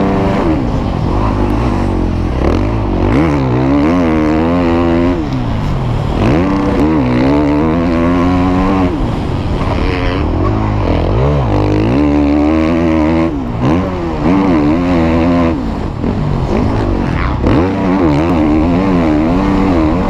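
Husqvarna 450 motocross bike's engine ridden on the track, revving up and dropping back over and over as the throttle is worked, with short lulls where it is shut off.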